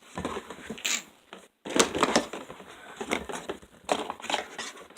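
Crinkling and rustling of packaging being handled during an unboxing, in irregular bursts.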